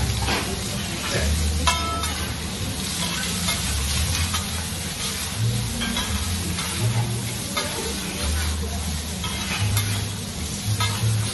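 Food sizzling on a teppanyaki hotplate as it is stirred with metal spatulas, with scattered light clicks and one ringing metal clink a couple of seconds in.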